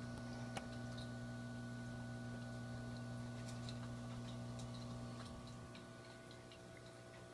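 Low, steady electrical hum of a reef tank's water pump, with faint scattered ticks over it; the hum drops away about five seconds in.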